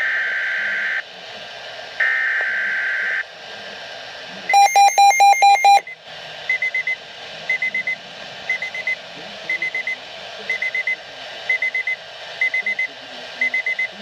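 Weather radio emergency alert signalling: two screeching SAME digital header bursts about a second long each, then a loud pulsed alarm tone for about a second, followed by quick high beeps in groups of three or four, repeating about once a second.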